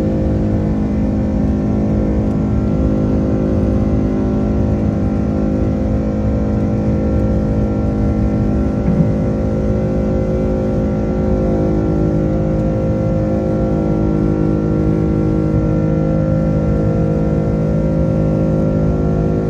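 Airbus A330-300's Rolls-Royce Trent 700 turbofans running at takeoff power: a steady drone of several held tones over a heavy low rumble.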